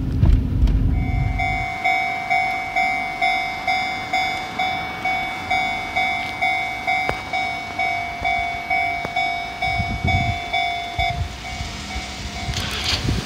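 Japanese level-crossing warning bell ringing, an electronic clang repeating about twice a second, then stopping about eleven seconds in. A low rumble of road noise is heard in the first second and a half.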